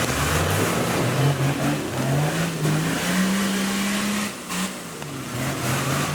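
Off-road Toyota Land Cruiser engine revving under load, its pitch climbing in steps for about four seconds, then easing off to a lower, steadier note.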